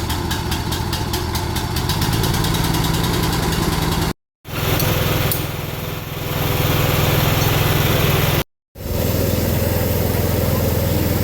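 A small engine runs steadily with a fast, even pulsing, likely a motorised tool being used on the ground around the hole. The sound cuts off abruptly twice, about four and eight and a half seconds in, and comes straight back each time.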